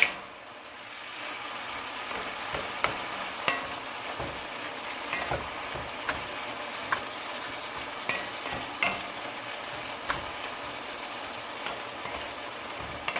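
String beans and minced pork sizzling in a pan as adobong sitaw cooks, a steady frying hiss. A utensil stirring the pan makes scattered clicks and scrapes, the sharpest one right at the start.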